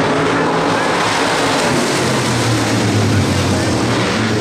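Several hobby stock race cars' engines running at racing speed on a dirt oval, a loud continuous sound of the pack, with a low engine note growing stronger about a second and a half in as cars come by.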